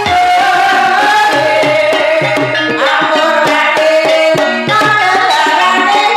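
Javanese gamelan music for a kuda kepang dance (gending jaranan/Banyumasan): kendang hand drums keep a running pattern under a held, ornamented sung melody and sustained metallophone tones.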